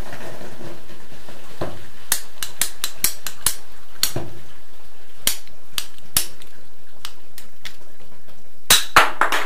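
Hand-held ratchet pipe cutter clicking as its handles are squeezed through a plastic water pipe: a string of separate sharp clicks, then a louder cluster of snaps near the end as the cut finishes.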